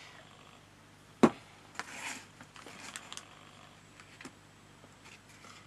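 Card stock being handled: one sharp tap about a second in, then soft rustling and a few small clicks as a paper card box is worked closed.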